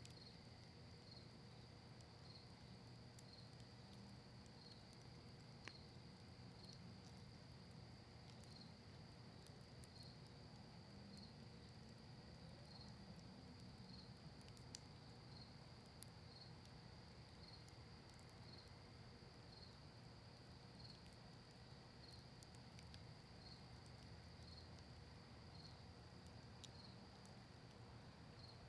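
Faint, steady chirping of crickets, with a few sparse, faint pops from a crackling wood campfire.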